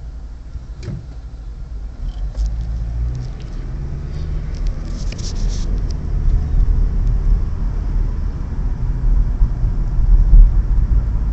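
Car driving: steady low road and engine rumble, getting louder across the stretch, with a few light ticks and rattles.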